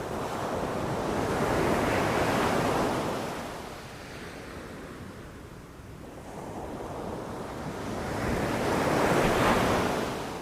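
Sea waves breaking on a shore: two waves surge and wash out, one peaking about two seconds in and the next near the end, with a quieter lull between.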